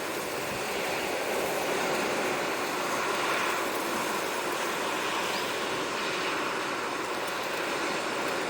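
Sea waves washing on the shore: a steady rush of surf that swells slightly a few seconds in.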